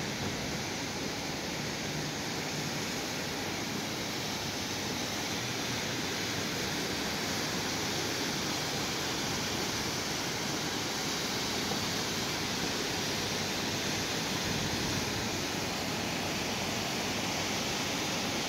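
Heavy rain pouring down in a steady, even hiss over a flooded street.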